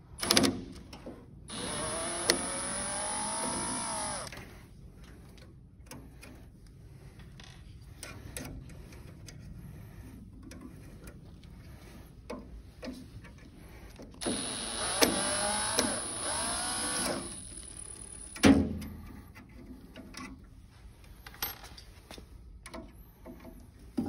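Cordless drill backing out clamp screws in two runs of about three seconds each, its motor whine wavering up and down in pitch. Small clicks of handling fall between the runs, and a knock sounds about three quarters of the way through.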